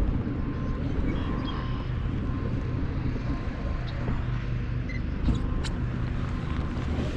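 A steady low motor hum runs throughout, with a few faint ticks and thin high tones over it.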